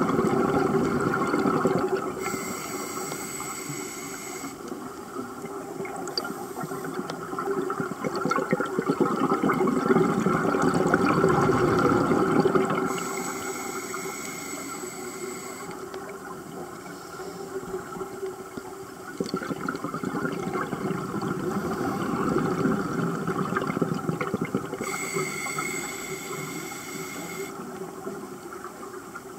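Scuba diver breathing through a regulator underwater: a high hiss on each of three inhalations, about eleven seconds apart, and long stretches of exhaled bubbles between them that rise and fade.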